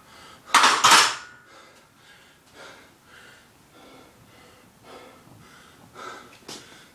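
A person breathing hard and wheezing during a rest between exercise intervals, in a run of faint rasping breaths. A loud, harsh burst of noise comes about half a second in.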